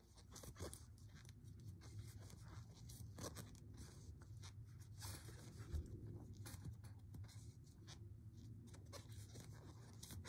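Faint scratchy rustling and light irregular ticks of a metal crochet hook and yarn being worked through single crochet stitches, over a low steady hum.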